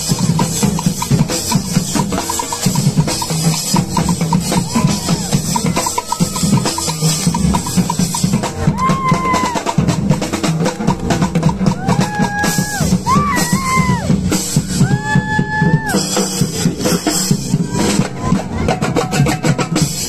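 A troupe of drummers playing drums and cymbals in a fast, dense, steady rhythm. A few high held notes ring out over it about halfway through.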